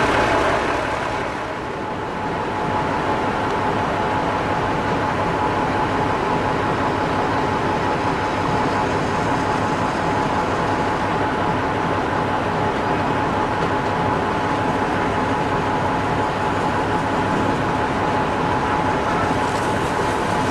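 15-inch gauge railway train running steadily, with a constant whine over an even rumble.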